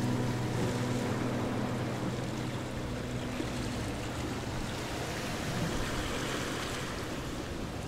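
Small wind-driven waves lapping and splashing against a lake shore in a steady wash. Soft music fades out during the first few seconds.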